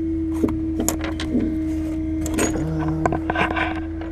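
Sharp metal clicks and clinks of hand tools tightening the antenna mount's clamp hardware, with a brief clatter near the end. Under them runs the bucket truck's steady engine hum and a constant whine.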